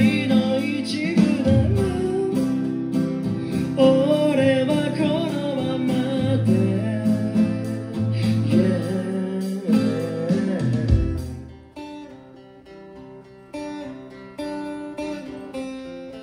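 Acoustic guitar accompanying a man singing through a PA system. The singing stops about eleven seconds in, and the guitar carries on alone, quieter, with single picked notes.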